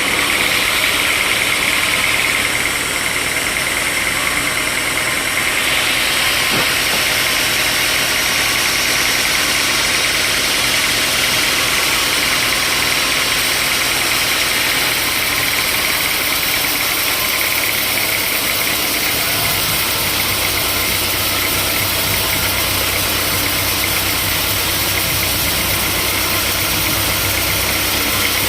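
Sawmill machinery running steadily: an engine-like drone under a strong high hiss. A deeper low hum comes in about two-thirds of the way through.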